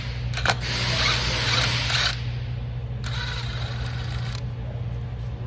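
A power tool runs in two bursts of a second or two as an old spark plug is backed out of the engine, with a sharp click about half a second in. A steady low hum sits underneath.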